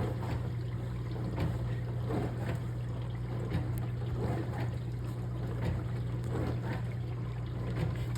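Dishwasher running: a steady low hum from its wash pump motor with water spraying and splashing inside the tub.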